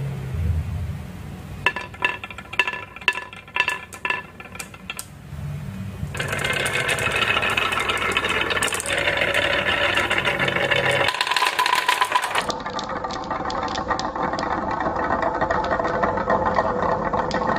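Many blue and pink marbles rolling down a wooden slope carved with wavy grooves, a dense, continuous clatter of clicks as they bump through the curves and against each other. It is preceded by a few seconds of separate sharp, ringing clicks.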